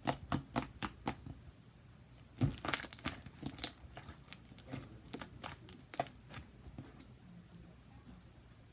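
Homemade slime being squished and stretched by hand, giving off irregular sharp clicks and crackling pops, thickest a few seconds in and thinning out toward the end.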